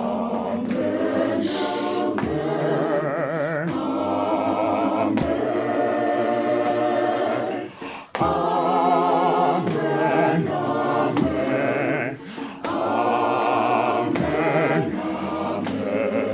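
Mixed choir of men's and women's voices singing in harmony, holding chords with vibrato, with two short breaks between phrases, about halfway through and again near three-quarters of the way.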